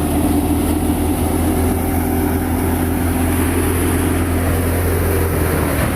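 Tractor engine running steadily at constant speed as it drives a wheat thresher, with the machine's noisy rush over a deep, even hum.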